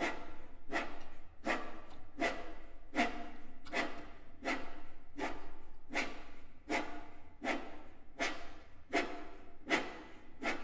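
Violins lying flat on a table, sounded by hand on the strings and body: a steady pulse of short strokes, about four every three seconds, each starting sharply and ringing briefly.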